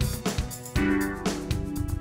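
Intro theme music with a steady drum beat, about two beats a second, over held pitched notes.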